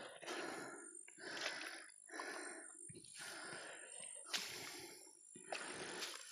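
Heavy breathing close to the microphone: a run of soft, noisy breaths, about one a second, with short pauses between them.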